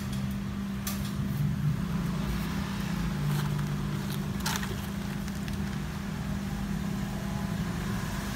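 A steady low mechanical hum, with a few light clicks scattered through it.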